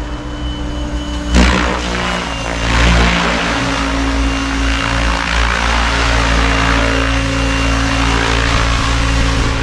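Goosky RS7 electric RC helicopter flying and hovering close: a steady motor whine with rotor blade noise and the hiss of downwash. It turns suddenly much louder about a second and a half in and stays loud.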